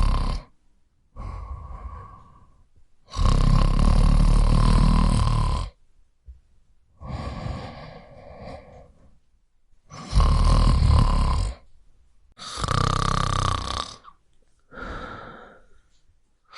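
A person snoring: loud, low snores alternating with quieter breaths, repeating every few seconds.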